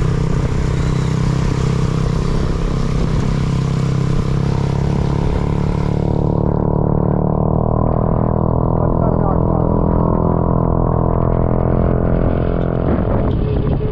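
Motorcycle engine running steadily while riding, with a hiss over it. About halfway through the hiss drops away and the sound turns duller.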